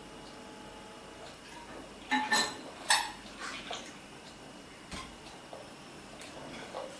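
A few sharp clinks of hard objects knocking together, loudest about two to three seconds in, followed by a few fainter knocks.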